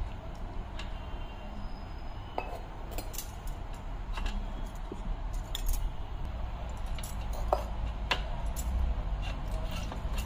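Light metallic clinks and taps, scattered at irregular moments, as a brass idol and a steel tumbler are handled against a brass plate while the idol is bathed with water.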